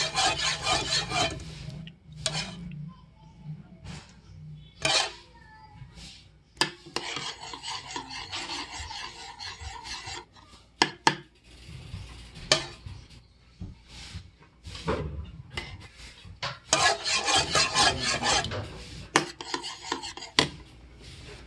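Metal spoon stirring and scraping thick champorado (chocolate rice porridge) against the sides of a ceramic bowl. It comes in several spells of quick rasping strokes, with sharp clinks of the spoon on the bowl in between.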